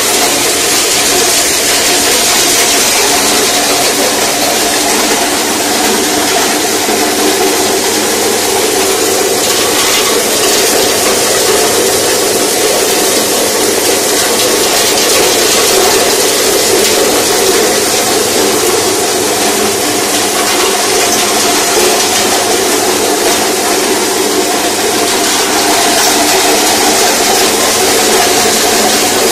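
Betel nut (supari) cutting machine running: a steady mechanical whir with a constant hiss, even in level throughout.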